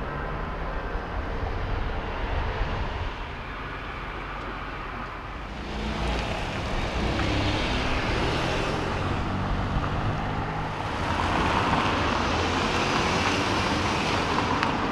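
City street traffic: cars passing, their tyre and engine noise swelling about six seconds in and again near the end over a low steady rumble.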